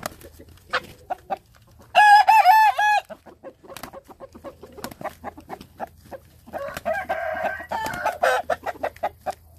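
Chickens: a rooster crows loudly about two seconds in, and a second, rougher call follows around seven seconds. Throughout there are quick wing flaps and scuffling from two hens, a black Pama and a chocolate Thai game hen, sparring on the grass.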